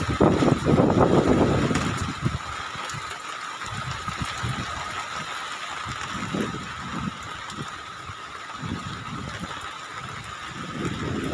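Wind buffeting the microphone in gusts, strongest for the first two seconds and again near the end, over a steady outdoor hiss with a thin, steady high tone.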